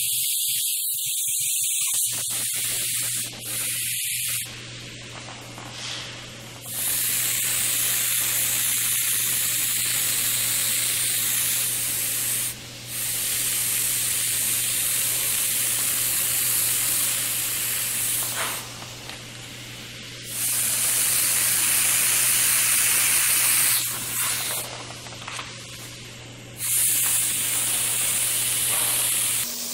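Airbrush spraying paint: a steady high hiss of air and paint in long bursts, cutting off briefly about five times as the trigger is let go and pressed again.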